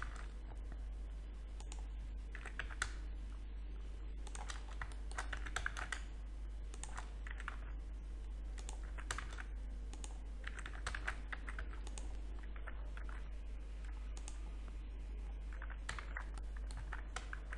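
Keys tapped on a computer keyboard together with mouse clicks and scroll-wheel turns, coming in short clusters of clicks every second or two over a steady low hum.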